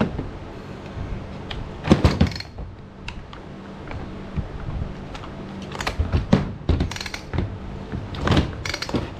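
Scattered clicks, clunks and knocks of tools and parts being handled at a workbench, loudest about two seconds in and again in a cluster after six seconds, over a steady low hum.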